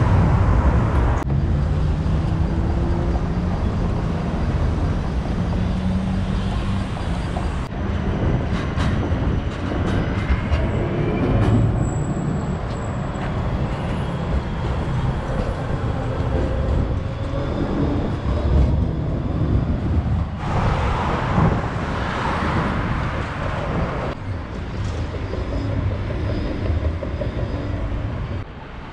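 City street traffic with articulated trams passing: a steady rumble of tram wheels on rails and road vehicles, with a faint whine now and then. The background changes abruptly a few times between separate takes.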